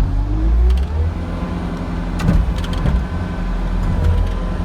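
Bobcat S570 skid-steer loader's Doosan diesel engine running steadily, with a whine that rises in pitch over the first second and a couple of clunks a little past the middle.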